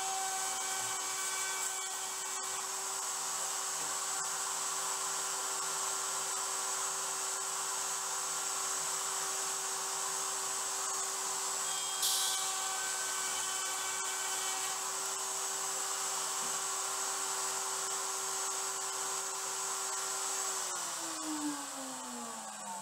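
Table-mounted wood router running at a steady high speed while dado cuts are pushed across the bit, with a brief hissing burst about twelve seconds in. Near the end the router is switched off and its whine falls in pitch as it spins down.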